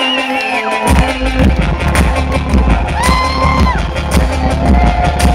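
Loud live electronic music from a synthesizer-and-drum-machine set over a festival PA, heard from within the crowd. A synth melody plays without bass until about a second in, when a heavy bass and beat come in and carry on.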